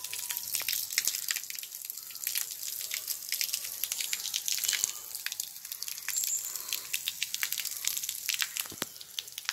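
Water pouring from the outlet of a siphon pipe and splattering onto a wet concrete roof, an irregular patter of drips and splashes. It is muddy water and sediment being siphoned out of the bottom of a water tank.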